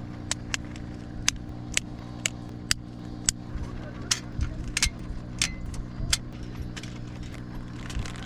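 Irregular sharp clicks and clinks, two or three a second, like small metal items knocking together, over a steady low engine-like hum.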